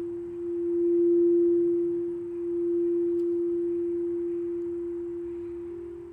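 Quartz crystal singing bowl sounding one pure, sustained tone that swells and ebbs in slow waves and gradually fades. Near the end a second bowl tone, slightly higher in pitch, comes in.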